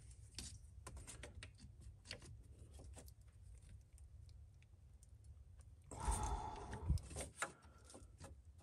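Faint clicks and taps of pliers working on a glow plug harness connector, then a louder stretch of scraping and a sharp click about six to seven seconds in as the connector is pried out.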